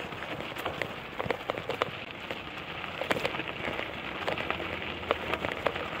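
Riding noise of a bicycle on the move: a steady crackling hiss dotted with many small, irregular clicks and ticks.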